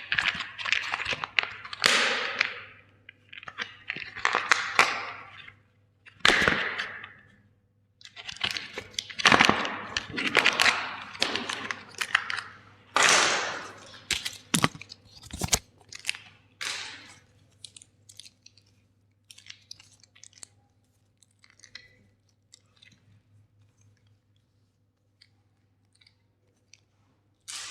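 Plastic toys being crushed, cracking and crunching in repeated bursts for about seventeen seconds, then only a few scattered small clicks and snaps, with one sharp crack near the end.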